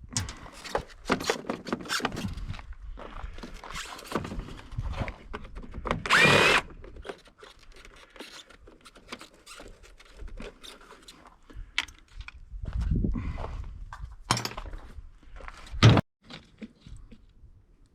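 Cordless drill backing out Phillips screws from a small window air conditioner's casing in short whirring bursts, the longest about six seconds in, between clanks and rattles of sheet metal being handled. A sharp loud knock comes near the end.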